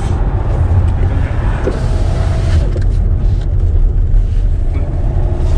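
Steady low rumble of engine and road noise heard from inside a Tata Safari SUV as it drives along a town road.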